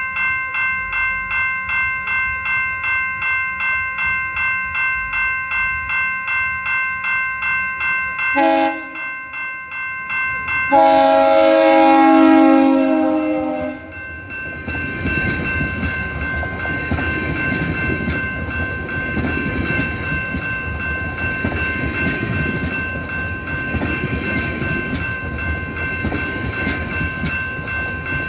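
Level-crossing bell ringing steadily, then a train horn gives a short toot and a long blast of about three seconds as the train reaches the crossing. The train then passes with its wheels clacking over the rail joints while the bell keeps ringing.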